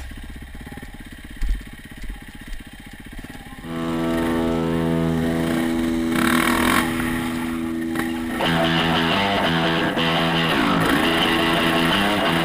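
A dirt bike engine running, mixed with guitar-driven music. Quieter at first, then louder from about four seconds in.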